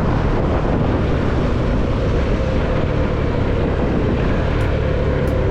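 CFMoto motorcycle engine running steadily under way, mixed with wind and road noise.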